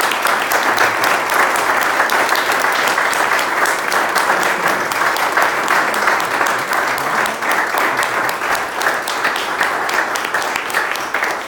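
Sustained applause from a roomful of people clapping, steady throughout and beginning to die away near the end.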